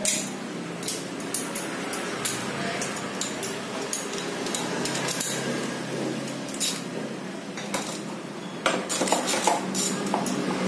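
Metal hand tools clinking and clicking: a ratchet and socket working the bolts of a car's air filter box, in scattered sharp taps over a steady low hum.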